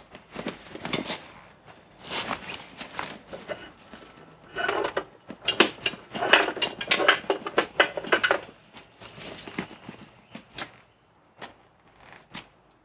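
Rustling and scraping of a large StreamTrail 55-litre motorcycle bag being handled and lifted off a rear luggage rack. The sounds come in irregular bursts, busiest in the middle and thinning to a few scattered clicks near the end.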